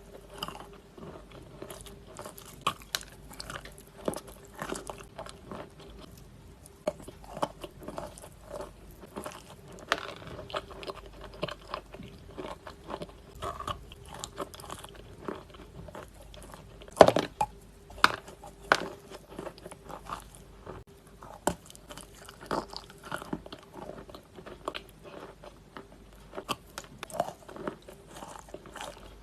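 Pieces of Khrapovsky chalk being bitten and chewed close up: a run of irregular, crisp crunches and crumbling, with one loudest cluster of bites a little past halfway.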